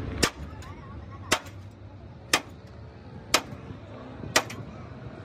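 Hammer striking a truck's steel chassis frame rail: five sharp, evenly spaced blows, about one a second.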